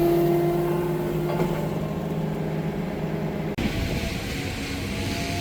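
An engine running steadily. About three and a half seconds in, it breaks off abruptly and a different steady engine sound takes over.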